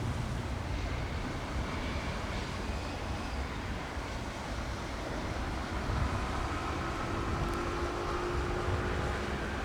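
Tecnam P2006T twin-engine propeller aircraft, its two Rotax 912 engines a distant drone, approaching for a low pass over the runway. The engine tones come through more clearly in the second half, over a steady low rumble.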